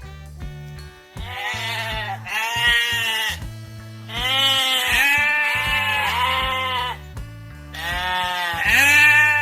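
Sheep bleating, several drawn-out wavering bleats, over background music with a repeating bass line.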